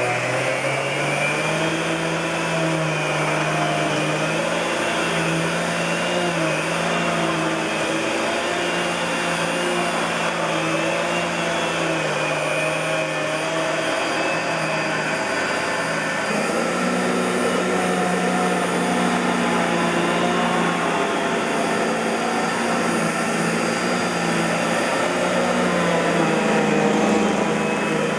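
1999 Fantom Lightning LC56-00 bagless canister vacuum cleaner running. Its motor hum wavers up and down and shifts in pitch a little past halfway.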